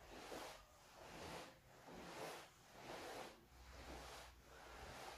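Faint, rhythmic swishing of a heavy cotton karate gi as the arms swing through side-to-side torso twists, about once a second.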